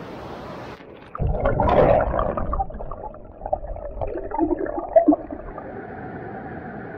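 Loyalsock Creek's rapids heard first as an open-air rush, then from underwater as the camera is dipped below the surface about a second in. The hiss drops away and muffled, irregular gurgling and low rumbling of the current follow, settling into a steady dull rush near the end.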